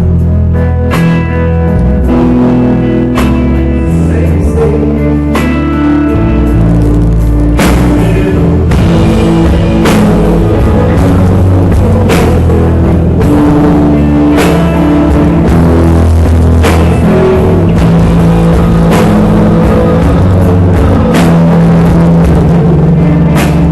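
Live rock band playing a mid-tempo instrumental passage: electric guitar and bass over a drum kit. Drum and cymbal accents land about every two seconds in the second half.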